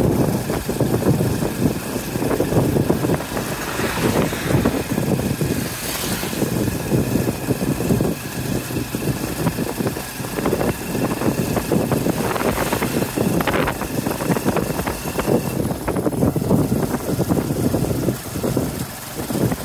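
Tuk-tuk ride: the motorcycle pulling the passenger carriage runs steadily at cruising speed, under continuous wind and road rumble.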